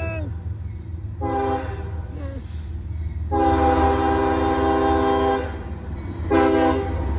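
CSX diesel locomotive's multi-note air horn sounding its crossing warning: the end of one blast at the start, a short blast about a second in, a long blast of about two seconds in the middle, and another short blast near the end, over a steady low rumble as the train approaches the grade crossing.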